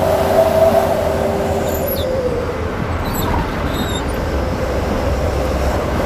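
Hino 500 concrete mixer truck driving, heard inside the cab: a steady diesel engine drone mixed with road and tyre noise, with a steady mid-pitched tone that fades out about two seconds in.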